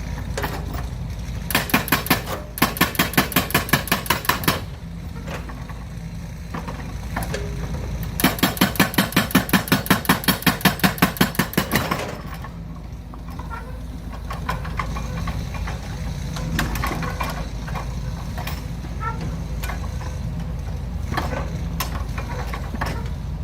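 A toy excavator's motor and plastic gears running in two stretches of rapid, even clicking, each a few seconds long, over a steady low hum, with softer scattered clicks afterwards.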